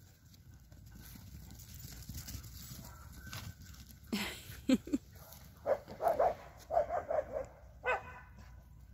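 A dog barking and yipping during play: quiet at first, then about half a dozen short barks and yips in quick bursts from about four seconds in, some dropping in pitch.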